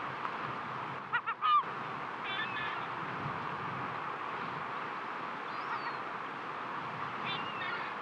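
Steady wash of breaking sea waves, with a bird calling loudly three times in quick succession about a second in and fainter bird calls a few times after.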